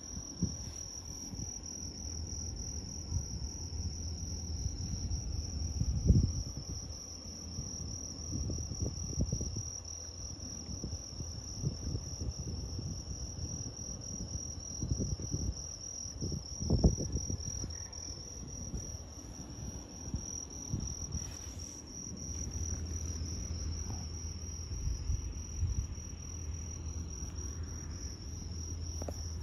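Crickets chirping in a steady, continuous high-pitched trill, with close, irregular low rustling and bumps of handling near the microphone, the loudest about six and seventeen seconds in.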